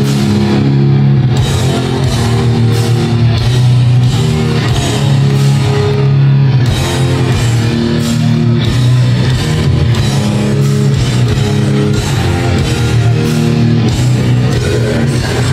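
Live metal band playing loud, with heavy distorted electric guitars and bass holding low chords over steady drum-kit hits. Recorded on a phone from the crowd.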